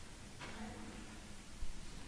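Quiet room tone with a faint sharp click about half a second in and a short soft low thump near the end.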